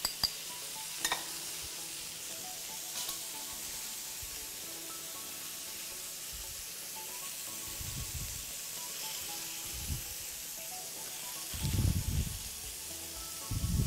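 Steady sizzling hiss of zucchini slices frying in oil in a pan on a gas hob, with a few light clicks early on and soft bumps near the end.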